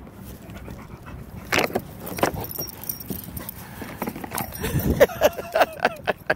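A pit bull biting and chewing a plastic bottle: irregular crackles and crunches of the plastic, starting about a second and a half in and coming thick and fast near the end.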